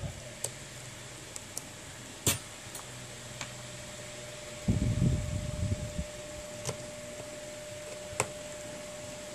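Small sharp clicks as a metal connector cover plate is fitted over a phone's logic board and a screwdriver is set on its screw, about five in all. They sit over a steady fan-like hum, with a low handling bump about five seconds in.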